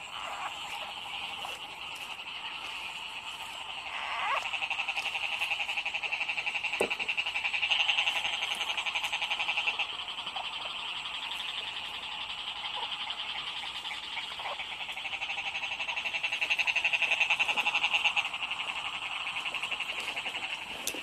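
Dense chorus of rice-field frogs calling together, a steady fast-pulsing trill with lower croaks beneath, swelling louder twice. It is the calling that breaks out in the paddies after heavy rain.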